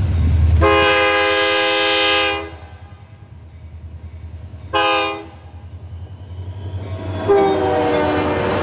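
Diesel freight locomotive's multi-chime air horn sounding one long blast and then one short blast, over the low rumble of the approaching engine. Near the end the train's engine and rail noise swell as it draws close and passes.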